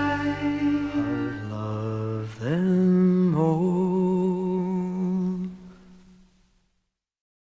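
Closing bars of a pop-rock song: a pitched note slides up and is held with a slight waver, then fades out to silence about six seconds in.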